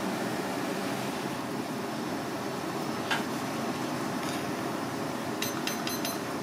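Steady kitchen background noise, with one light click about three seconds in and a few faint ticks near the end.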